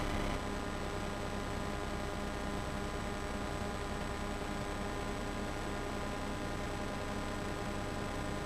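Steady hum made of several fixed tones, with hiss over it.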